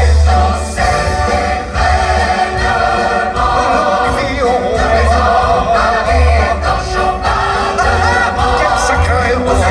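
Loud show music with a choir singing over orchestral accompaniment and a heavy, pulsing bass.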